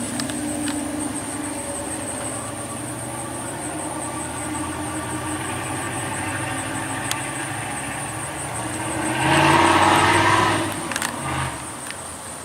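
Motor vehicle engines running steadily, with one vehicle passing close and loud about nine to eleven seconds in, then fading. Insects keep up a steady high-pitched chirring throughout.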